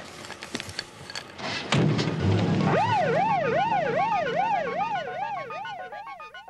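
Police car siren in a fast up-and-down yelp, about three cycles a second, starting about three seconds in over a low rumble and fading away near the end. A few sharp clicks come before it.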